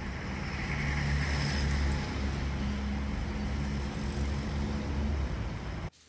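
Low, steady rumble of a motor vehicle's engine running, with a few held low tones and a hiss of traffic noise over it. It cuts off abruptly near the end.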